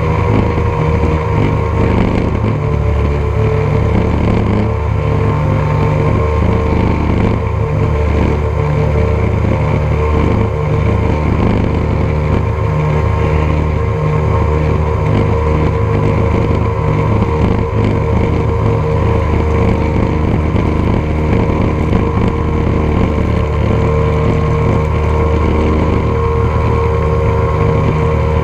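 Three Evinrude 300 V6 two-stroke outboard motors running together steadily while towing a long line of water skiers, heard up close from the tow pylon.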